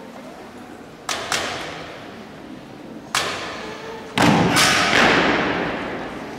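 Sharp drill stamps and knocks of a Spanish Legion honour guard on a hard church floor, echoing in the hall: two about a second in, one near the middle, and the loudest pair close together later on.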